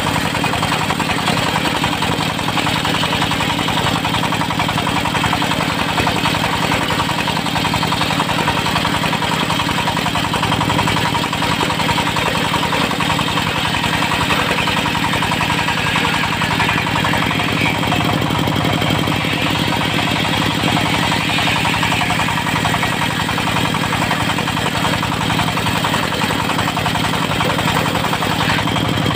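Diesel engine powering a portable circular sawmill, running at a steady speed.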